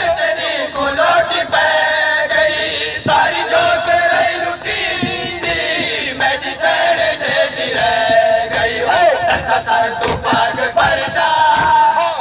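Men's voices chanting a noha, a Shia lament for Karbala, in a drawn-out melody, with the crowd joining in. Scattered sharp slaps of hands beating on chests (matam) come through the chant.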